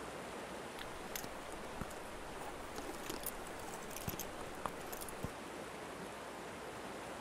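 Steady rushing ambient noise with a scattered handful of small clicks and pops in the middle.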